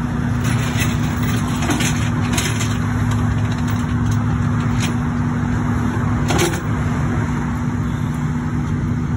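A large engine idling steadily, a low rumble with a constant hum, from the flatbed tow truck carrying the car. A few faint clicks sound over it at scattered moments.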